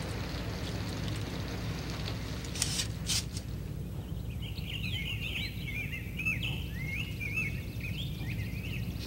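Falling rain hissing, then two sharp clicks about three seconds in, after which the rain stops. Birds then start twittering with quick chirps that rise and fall, a cue that the rain has ended.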